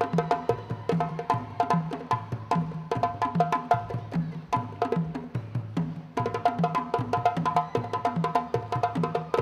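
West African hand-drum ensemble playing a fast rhythm: a low drum repeating about twice a second under dense djembe-type strokes and a higher, ringing struck part. The playing grows denser and louder about six seconds in.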